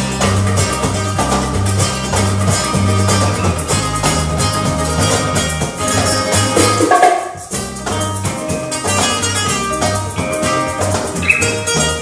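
Live flamenco-style instrumental music: two acoustic guitars play busy plucked and strummed lines over an electric bass guitar and hand percussion on a cajon. About seven seconds in the bass briefly drops out for a short break, then the band comes back in.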